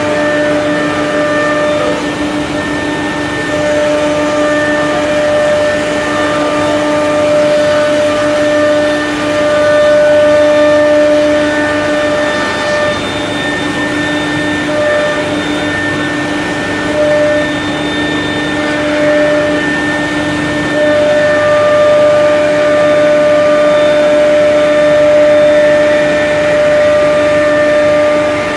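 XQ2165 CNC panel router running, its gantry travelling along the bed: a steady machine whine with several tones, some of them dropping in and out, over a steady rushing noise.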